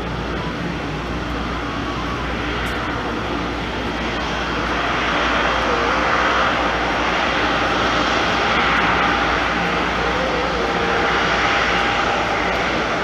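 Jet airliner engines running steadily, growing louder about five seconds in and then holding, with a steady low rumble underneath.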